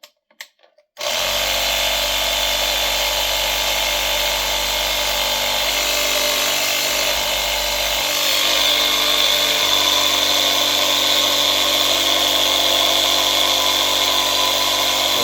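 Small electric air compressor clicked on, starting abruptly about a second in and then running steadily, a little louder from about eight seconds. It runs again after its fuse and wiring repair.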